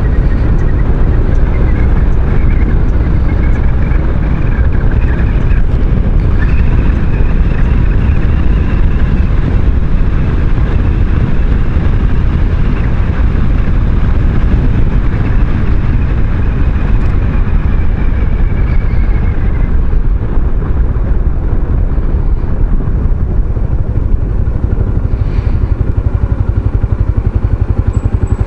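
A maxi-scooter being ridden, engine running under wind rush on the microphone, with a faint high whine that rises and falls and fades out about twenty seconds in as the scooter slows.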